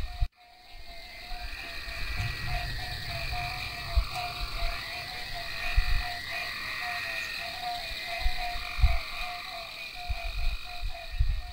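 A chorus of frogs croaking in a rapid, even pulse over a steady high hum, with scattered low thumps. The sound drops out for a moment just after the start.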